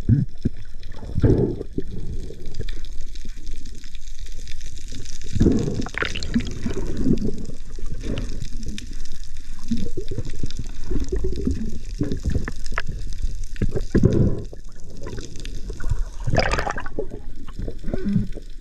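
Muffled water rushing and gurgling against an underwater camera as the diver swims, with several louder gushes along the way.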